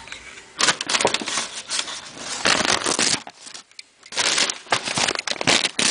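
Packing bags being handled and opened, crinkling and rustling in two long bouts with a short pause between them.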